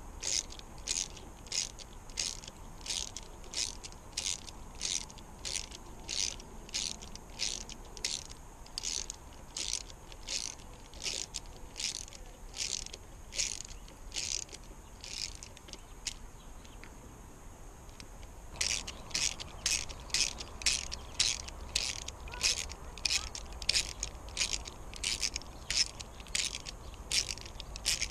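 Socket ratchet clicking in steady strokes, about two a second, as it spins a spark plug out of a Yamaha two-stroke V6 outboard. It stops for a couple of seconds about two-thirds of the way through, then starts again.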